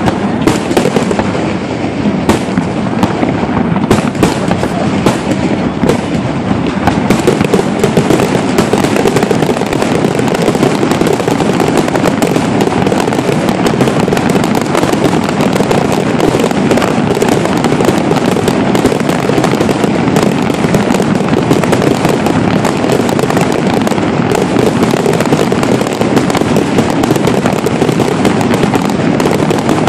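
Fireworks barrage: a dense, continuous run of bangs and crackles, growing denser and louder about seven seconds in.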